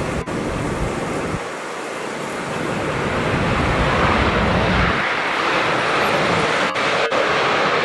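Jet engines of a Boeing 787-9 Dreamliner (Rolls-Royce Trent 1000) as it rolls out along the runway after landing: a steady rushing noise that grows louder about two to four seconds in. Brief dropouts near the start and near the end.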